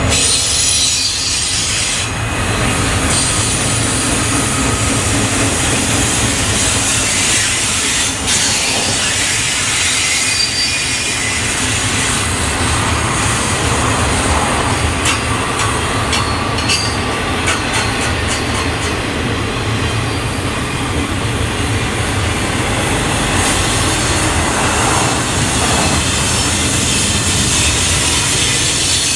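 Intermodal freight train cars carrying semi-trailers rolling past on curved track: a steady rumble of steel wheels on rail, with a high wheel squeal coming and going.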